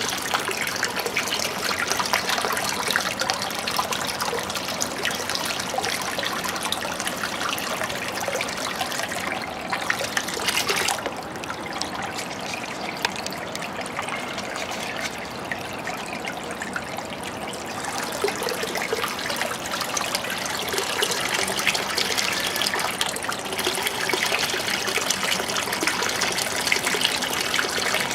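Water from a repaired Powerbox SV12000 aquarium filter trickling and splashing steadily back into the tank. It goes softer and duller for several seconds near the middle, then picks up again.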